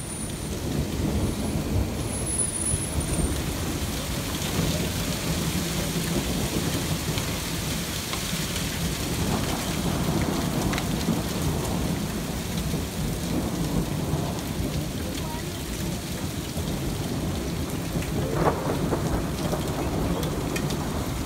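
Hailstorm: hailstones coming down hard, a steady dense rush of stones striking the ground and surfaces, with one sharper, louder hit near the end.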